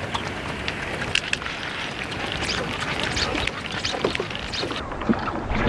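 Topwater propeller lure being retrieved across a lake: irregular small clicks and splashy ticks over a steady hiss of wind and water.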